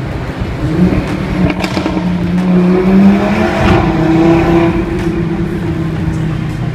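Audi RS3's turbocharged inline five-cylinder engine and exhaust accelerating, heard from inside the cabin in a road tunnel: the engine note rises in pitch, is loudest about three seconds in, changes note shortly after, then runs steadier.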